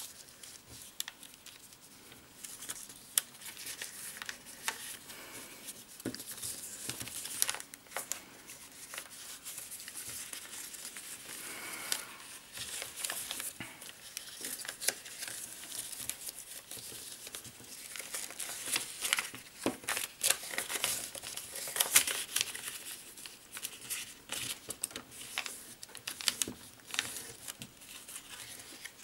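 A sheet of origami paper being folded and creased by hand: crinkling and rustling, with many short sharp clicks and taps as the folds are pressed down.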